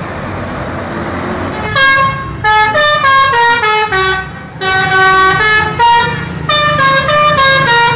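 Bus engine and road noise, then from about two seconds in a multi-tone "telolet" bus air horn plays a tune of stepping notes, with a couple of short breaks.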